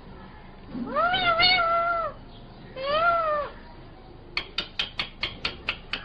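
Rose-ringed (Indian ringneck) parakeet giving two drawn-out calls that rise and fall in pitch. About four seconds in, a quick run of short, sharp clicks follows, about five a second.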